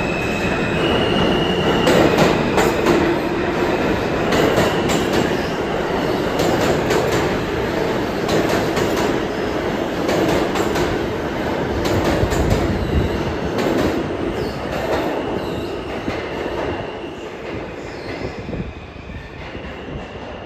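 NYC Subway R160 train on the F line pulling out of the station and passing close by, its wheels clicking over rail joints, with a high whine in the first couple of seconds. The sound fades as the train pulls away into the tunnel near the end.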